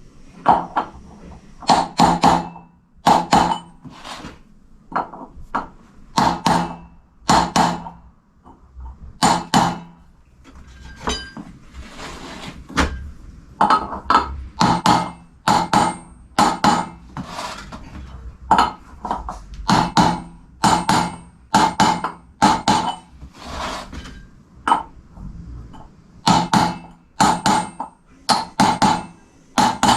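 A hammer striking metal, irregular blows about one or two a second, each ringing briefly, as wheel-hub parts and a bearing are knocked into a motorcycle hub during reassembly.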